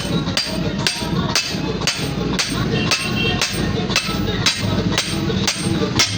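Blacksmith's hammer striking a hot steel blade on an anvil in a steady rhythm, about two blows a second, while forging a grass cutter.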